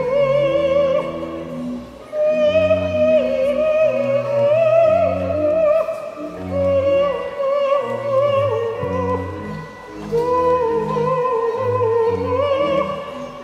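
Live experimental ensemble music: a held, wavering melody line with vibrato over a repeating pattern of short, low bass notes, easing off briefly about two seconds in and again near ten seconds.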